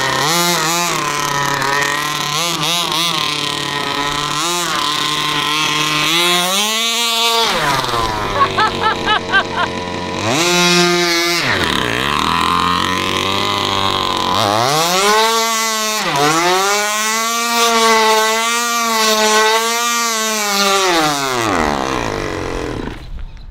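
36cc petrol engine of a large-scale RC buggy revving up and down as it is driven: short throttle blips at first, then longer climbs in pitch, with a long high-revving run of several seconds before it falls back and quietens near the end.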